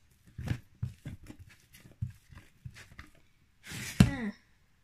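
Hands kneading and pulling apart sticky homemade cornflour-and-shampoo slime on a work surface: irregular soft taps and tearing sounds, with a louder smack about four seconds in. The sound cuts off suddenly near the end.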